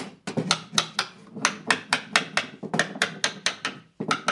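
Small hammer tapping rapidly on the joined corner of a wooden picture frame, about four light taps a second with a brief pause near the end, knocking the corner joint tight and square.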